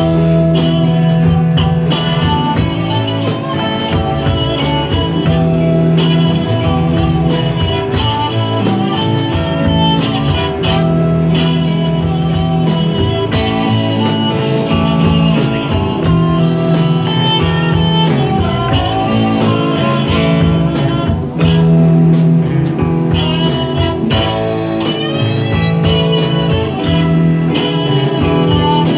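Band playing blues-rock music without singing: electric guitar lines over a steady drum beat.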